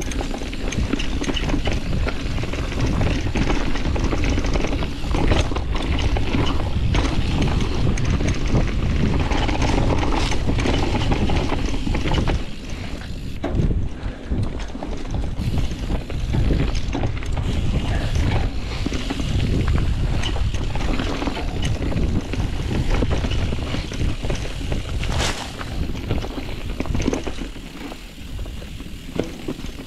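Wind buffeting the microphone and mountain bike tyres rumbling over a dirt trail at speed, with knocks and rattles from the bike as it goes over bumps.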